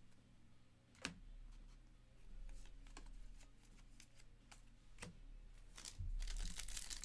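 Trading cards being handled by hand on a table: scattered light clicks and taps of cards and plastic sleeves, the sharpest about a second in. The rustling gets denser near the end.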